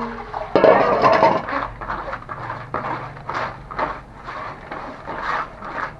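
A steel bowl clanks and its washing water splashes out onto a concrete floor. Then come short, irregular rubbing strokes, several a second, as wet fish pieces are scrubbed by hand in a plastic basket to work off the remaining scales.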